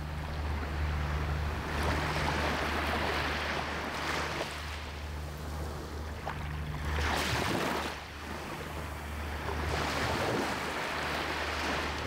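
Small waves breaking close at the waterline and washing up over sand and back, the surf hiss swelling and ebbing every few seconds. The loudest wash comes about seven seconds in.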